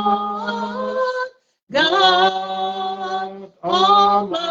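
A single voice singing a slow worship chorus without accompaniment, holding long notes on each word ("Lord", "God"), with short silent breaks between phrases.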